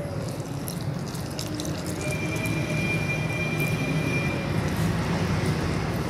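A spoon stirring and scraping through flour in a glass bowl as milk is poured in, with a few light clicks, over a steady low hum.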